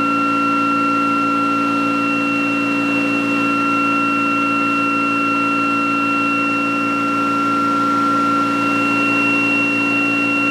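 Prime mover and ReGen-X generator test rig running steadily at about 3,400 RPM with the generator coils on load: a steady hum with high whining tones that hold one pitch throughout.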